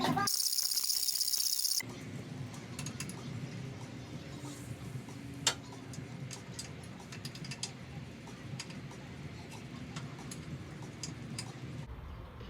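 A brief high electronic sound at the start, then faint scattered clicks and ticks over a low steady hum, with one sharper click about halfway through.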